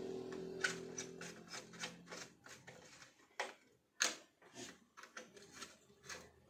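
Small screwdriver clicking and scraping against the screw terminals of a car amplifier as speaker wires are fastened: a run of irregular small clicks and scrapes, the sharpest about four seconds in. A faint low hum fades out in the first second or so.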